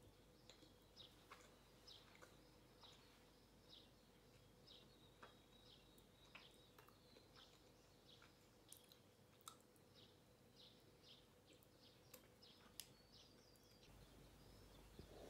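Faint chirping of small birds: short high chirps repeating about twice a second over quiet room tone, with a few soft clicks scattered through.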